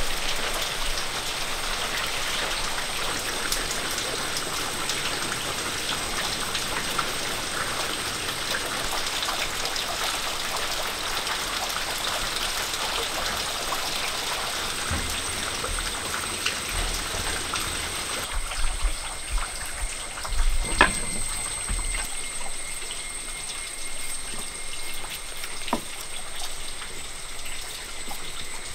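Steady rain patter. About two-thirds through it eases, a few sharp knocks sound, and a thin high steady whine comes in.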